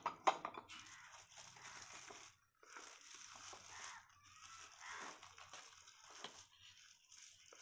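Thin polythene sheet crinkling and rustling as it is pulled and knotted tight around the cast-iron plate of a roti-maker press, with a sharp tap near the start.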